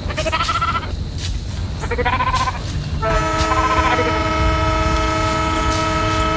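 Train running with a low rumble under two short wavering animal calls. About three seconds in, a locomotive horn starts sounding a steady multi-note chord and holds it.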